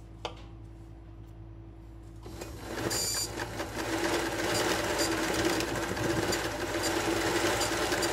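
Sewing machine stitching free-hand embroidery, starting up about two seconds in and then running fast and steady. Before that there is only a faint steady hum and a single click.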